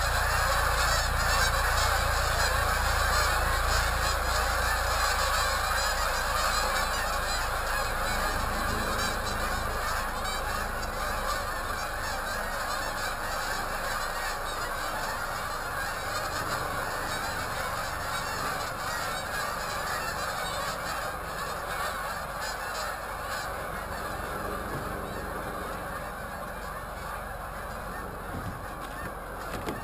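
A large flock of geese flying overhead, a dense chorus of many overlapping honks that fades gradually as the flock passes on.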